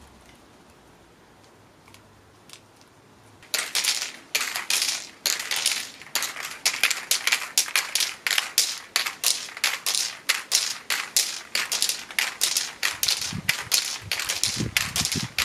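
Aerosol spray paint can fired in quick short bursts of hiss, about three a second, starting a few seconds in after a quiet start.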